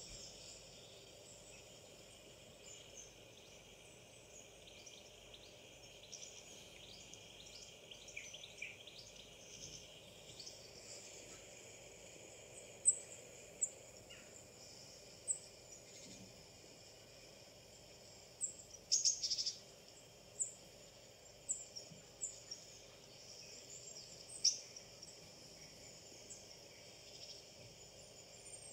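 Woodland birdsong from a bird video playing on a laptop: a steady background of faint high twittering, with short, sharp bird calls every second or so through the second half.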